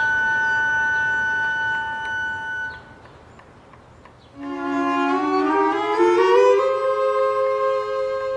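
Background music score led by bowed strings: long held notes, a short lull about three seconds in, then notes climbing step by step to a held chord.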